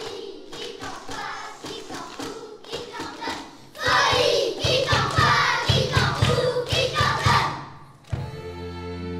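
Children's choir singing with a small instrumental ensemble. It starts softer over a steady tone and regular light taps, turns much louder about four seconds in with strong low beats, and ends on a held chord.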